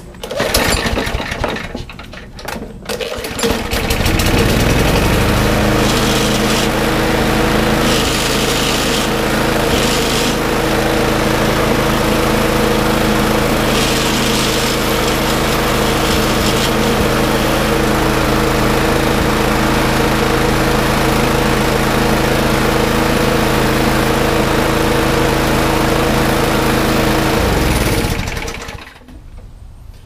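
Craftsman push mower's small gas engine pull-started with a new air filter fitted: two short pulls, then it catches about four seconds in, comes up to speed and runs steadily. Near the end it slows and stops as it is shut off.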